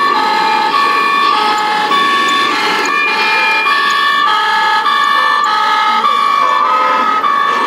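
Two-tone German-style fire engine siren from a scale RC fire truck's sound module, alternating steadily between a high and a low note, each held about two-thirds of a second.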